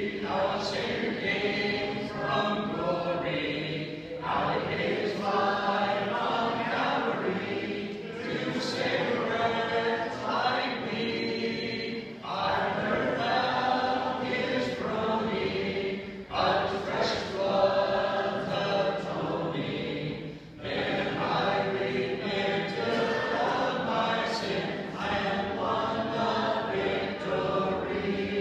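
Congregation singing a hymn a cappella, unaccompanied voices in lines of about four seconds with a short break between each line.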